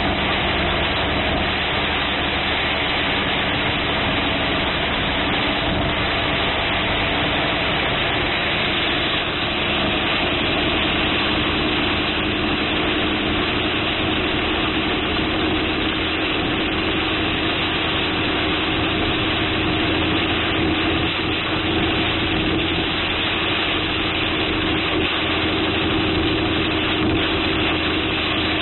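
Heavy rain pelting a car's roof and windshield, heard from inside the cabin, over the steady hum of the car's engine idling.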